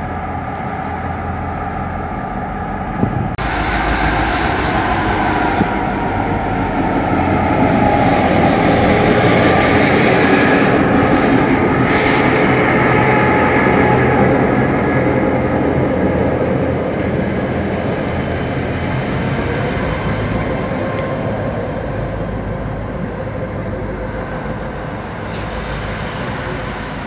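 Three Aurizon diesel-electric locomotives (1753, 1756 and 2332D) running light engine, approaching and passing close by, then drawing away. The engine noise builds to its loudest about halfway through and then slowly fades, with one sharp click a few seconds in.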